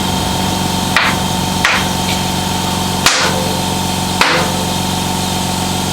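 Four sharp knocks from work on a mountain bike build, about a second or so apart, over a steady low machine hum.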